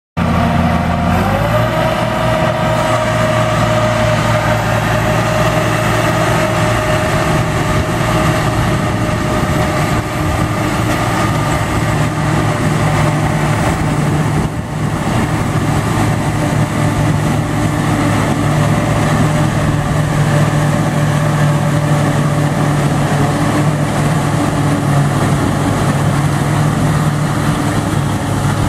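Ford tractor engine working under load while a Gehl forage harvester chops standing corn for silage, a loud steady mechanical drone with a steady whine above it that settles slightly in pitch in the first couple of seconds.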